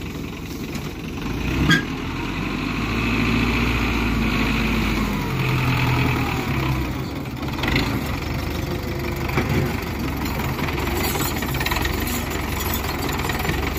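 Belarus tractor's diesel engine running as the tractor moves off, getting louder about two seconds in and then holding steady. A single sharp knock sounds shortly before the engine picks up.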